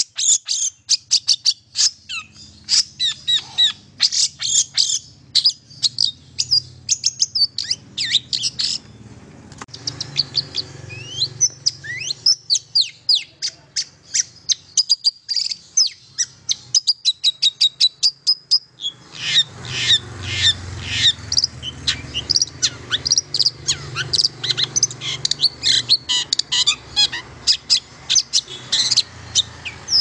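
Long-tailed shrike singing a fast, varied run of sharp, high chirps and trills, with a brief lull about nine seconds in.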